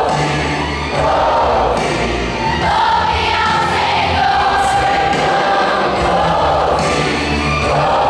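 Choir singing a gospel song in Portuguese over a steady bass accompaniment.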